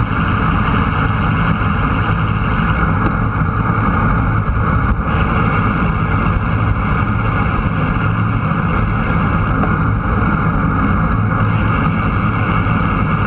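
A vehicle engine running steadily at cruising speed, under a continuous rush of road and wind noise, picked up by an action camera mounted low on the moving vehicle.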